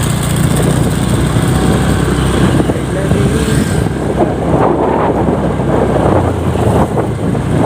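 Motorcycle engine running steadily on the move, with road and wind noise on the microphone.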